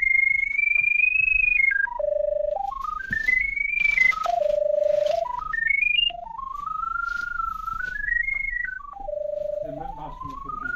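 Electronic tone from a handheld drain locator tracking the drain camera's sonde, its pitch stepping up and down as the signal strengthens and fades. It climbs to a high note and drops to a steady low note three times, with brief rustling between.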